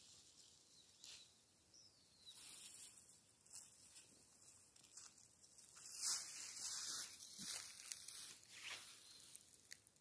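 Faint footsteps crunching and rustling over dry fallen leaves and bean-stalk debris, about one step every second or so, the loudest about six seconds in, over a steady faint hiss.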